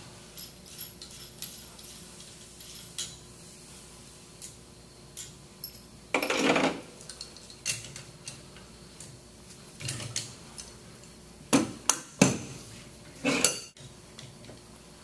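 Wrench working a 3/4-inch bolt on the end of a stainless-steel pneumatic chemical injection pump head: scattered light metal clicks and clinks, a longer scraping rattle about six seconds in, and a few sharper clanks near the end.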